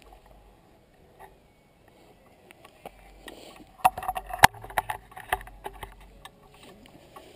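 Mountain bike and its mounted camera jostling on a rocky trail: quiet at first, then a cluster of sharp knocks and rattles about four to five and a half seconds in.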